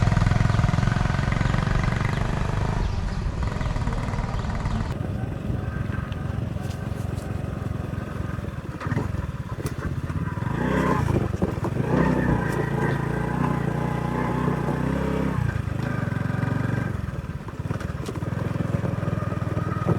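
Small motorbike engine running as the bike is ridden along, its note rising and falling around the middle as the throttle changes.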